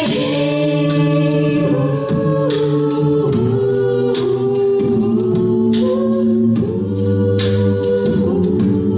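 Mixed a cappella group singing into microphones: a woman's lead voice over held backing chords that change every second or two, with vocal percussion keeping a steady beat.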